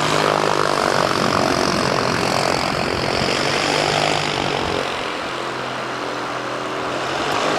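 Propeller-driven light aircraft's piston engine running steadily, a continuous drone that eases a little in level past the middle and picks up again near the end.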